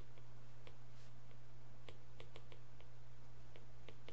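Stylus tapping and clicking on a tablet screen during handwriting: light, irregular clicks, several a second at times, over a steady low hum.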